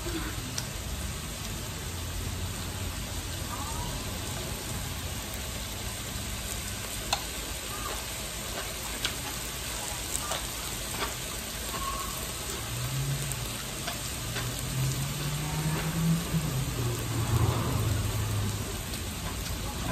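Beef rolls wrapped around enoki mushrooms sizzling steadily on an electric tabletop grill plate, with scattered small pops and clicks.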